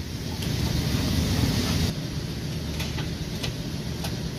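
Auto repair shop background noise: a low rumble, with a hiss over it for the first second and a half or so, then a few light clicks.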